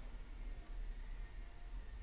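Quiet room tone with a low steady hum; nothing else stands out.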